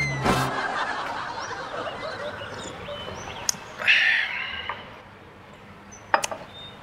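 Birds chirping in the background, with a short louder burst about four seconds in and a few light clicks.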